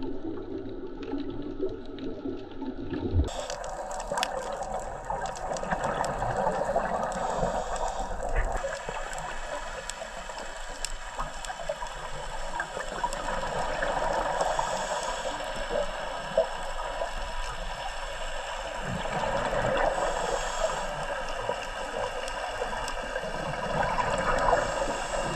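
Underwater sound as picked up by a diver's camera: a steady watery hiss with scattered small clicks. The sound changes abruptly about three seconds in.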